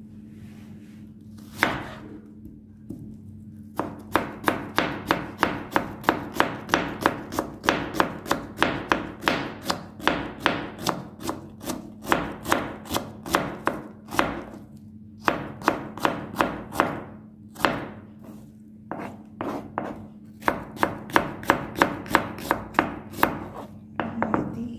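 Kitchen knife slicing a peeled onion on a plastic cutting board: the blade knocks on the board about three times a second, in runs broken by short pauses.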